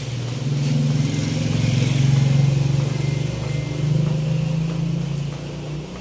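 A motor vehicle's engine running, with a low pulsing hum that grows to its loudest about two seconds in and then slowly fades, as when a vehicle passes by.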